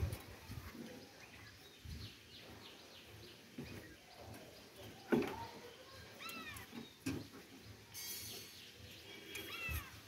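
Scattered knocks and clanks of sheet-metal parts as hands work inside an air conditioner's outdoor unit, the sharpest about five seconds in. Short, high, arched animal calls come in a quick run of three a little after six seconds and again near the end.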